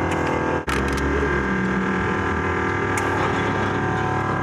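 Car engine and road noise heard inside the cabin while driving, a steady drone. The sound drops out briefly just over half a second in.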